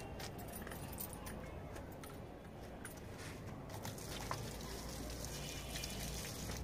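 Water poured from a small container onto a potted plant, a faint trickle and splash into the soil, with a few light clicks and knocks.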